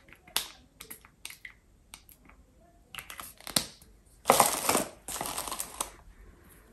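Light clicks and taps from handling a small facial-oil bottle, then two long sniffs about four and five seconds in, smelling the oil on the back of the hand.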